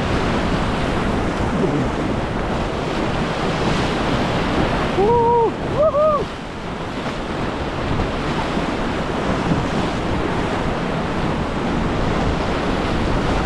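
Steady rushing of river rapid water, a dense hiss and roar of white water around a kayak, with wind on the microphone.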